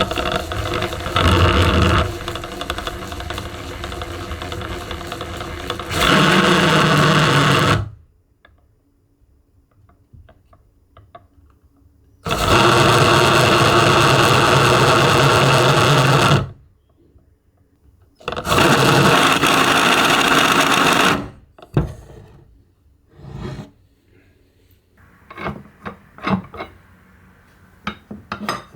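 A pair of meshing test gears spun up three times, each run a steady gear whine made of several fixed tones, with stops in between. The whine is the kind a manual transmission makes in reverse, where straight-cut gears run. Toward the end come scattered clicks and knocks as the gears are handled.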